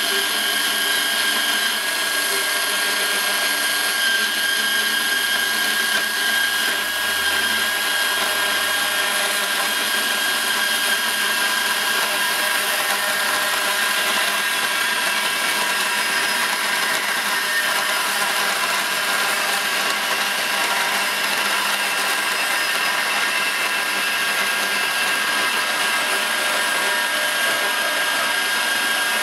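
Makita XGT PB002G 40V brushless portable bandsaw running steadily as it cuts through a thick-walled steel pipe (115 mm outer diameter, 5 mm wall) with a 10-tooth blade. The motor and blade make a steady, even whine throughout the cut.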